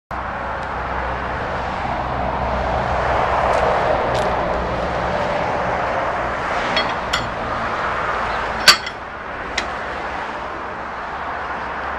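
A few sharp metal clinks as a man handles a Bamford Z2 stationary diesel engine, the loudest about three-quarters of the way through, over a steady low background rumble that swells and then fades.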